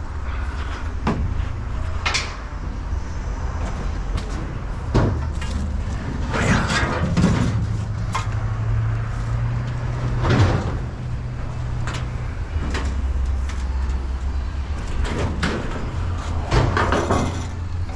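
Scattered metal clanks and knocks of scrap being handled, over the steady low hum of an engine running.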